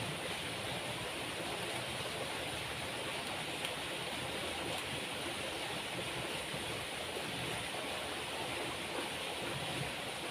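Steady rushing of flowing stream water, an even hiss throughout, with a few faint ticks a few seconds in.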